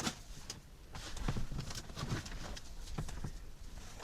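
Small items being handled on a table: a few light clicks and taps, with faint rustling.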